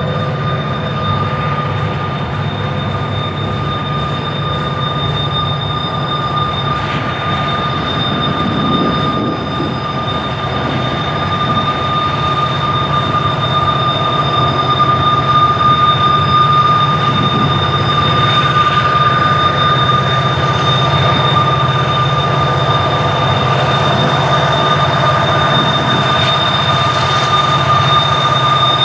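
Double-stack intermodal container cars rolling past: a steady rumble of wheels on rail, with a continuous high-pitched squeal of wheel flanges grinding against the rail on the sharp curve.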